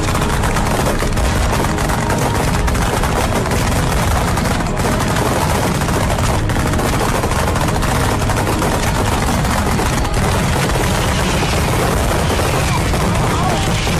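A chain of ground-fired fireworks going off in rapid, unbroken succession: a dense string of bangs, many a second, with no let-up.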